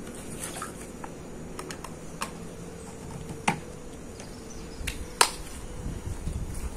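Scattered plastic clicks and knocks as a corrugated pool vacuum hose is pushed onto the plastic fitting of a pool vacuum head, with two sharper knocks about three and a half and five seconds in.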